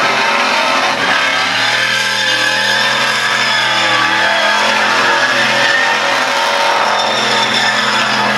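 Holden VR Commodore doing a burnout: the engine is held high in the revs while the rear tyres spin in clouds of smoke. The loud, steady running wavers a little in pitch during the first few seconds.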